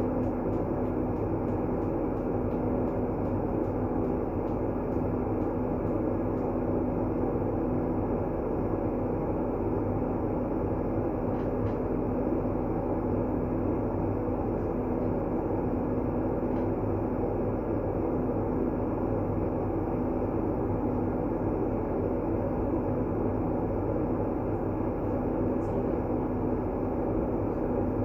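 Steady, deep, even rushing noise of a sleep-aid white-noise track, with a faint steady hum inside it. It does not change.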